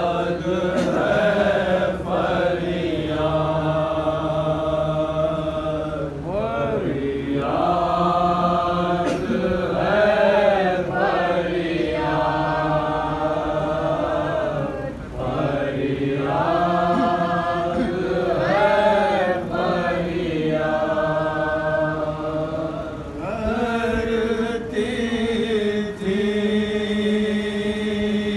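Several men's voices chanting a noha, a Shia mourning lament, in drawn-out melodic phrases a few seconds long with short breaks between them.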